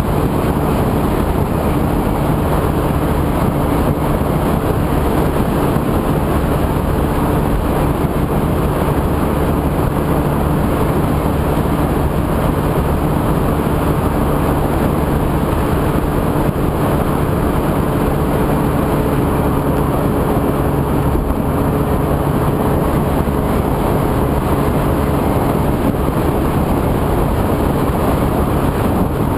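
A 50cc moped engine runs steadily at cruising speed, an even drone that holds pitch throughout. It sits under loud wind and road noise on a bike-mounted microphone.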